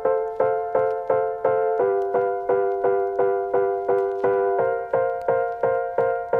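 Background music: a piano playing repeated chords, about three a second, with a steady beat.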